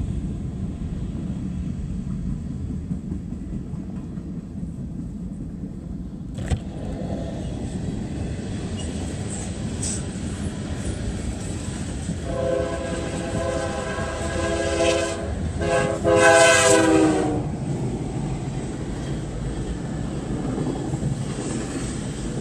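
CSX freight train passing with a steady low rumble. About twelve seconds in, a diesel locomotive's horn sounds a chord for about five seconds with a brief break; it grows loudest near the end, and its pitch drops as the locomotive goes by.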